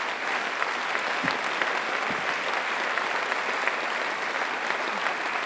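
Large audience applauding steadily, a dense, even patter of many hands clapping.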